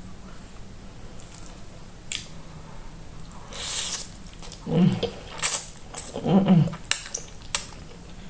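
Close-miked eating of creamy carbonara spaghetti: sharp mouth clicks and wet sounds, a slurp a little over three seconds in, and two short hummed "mm" sounds of enjoyment about halfway through.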